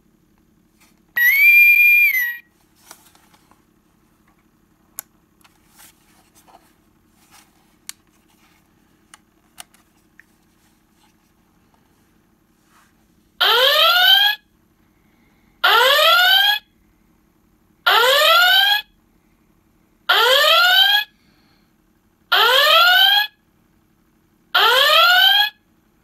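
Star Trek original-series Enterprise intercom door chime sounding its red alert klaxon: six rising whoops, each about a second long and about two seconds apart, starting about halfway through. Near the start the gadget gives one high steady tone lasting about a second.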